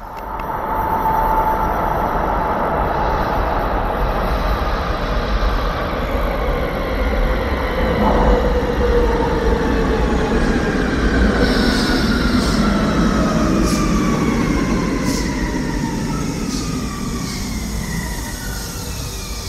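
Léman Express Régiolis electric train arriving at an underground station platform and slowing, its drive whine falling steadily in pitch as it decelerates. Several short high wheel or brake squeals come in about halfway through, over the echoing running noise.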